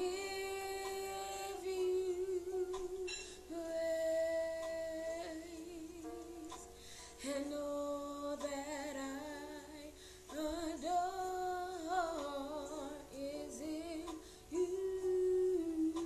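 A woman singing a slow worship melody in long held notes with a slight vibrato, phrase by phrase with short breaths between.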